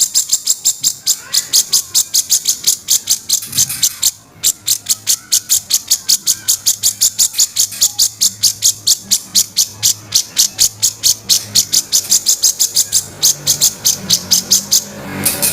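Grey-cheeked bulbul (cucak jenggot) giving its harsh, rasping 'kasaran' call: a fast, even chatter of many scratchy notes a second, breaking off briefly about four seconds in and then resuming.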